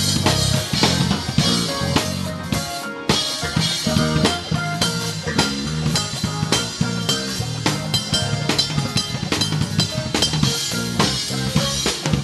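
Live gospel band playing, with a close-miked drum kit loudest: bass drum, snare and cymbals over bass and held notes. The band drops out for a moment about three seconds in, then comes back in on a hit.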